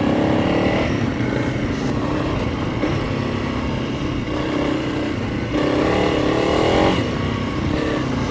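Motorcycle engine running under changing throttle, its note dropping and rising several times, with steady wind and road noise underneath.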